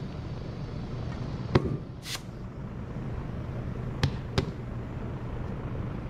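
Sharp metal clanks of tire tools striking the steel rim of a tractor tire: one about a second and a half in and two close together near four seconds, with a brief hiss just after the first. Under them runs a steady low hum.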